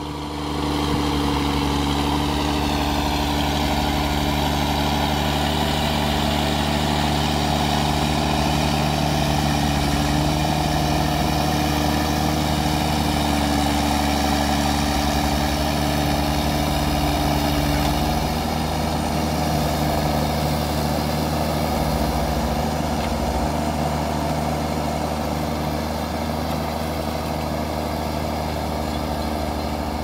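Ford TW25's six-cylinder turbo diesel working hard under the load of a four-furrow plough, running steadily through a straight-pipe exhaust. It gets louder about half a second in.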